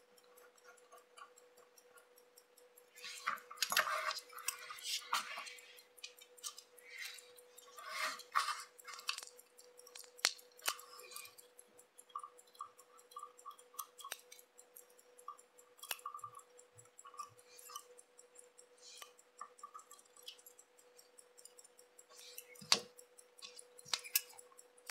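Small metal watchmaker's tools clicking and scraping against the parts of a chronograph movement during assembly: scattered light ticks and short rustles, busiest a few seconds in and again near the middle.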